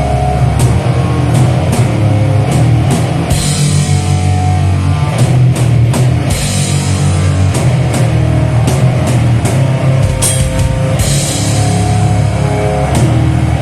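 Live rock band playing loud: guitar and bass over a drum kit, with cymbal crashes a few times.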